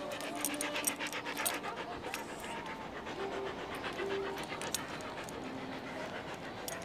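Husky dog panting close to the microphone, a quick, steady run of breaths several a second.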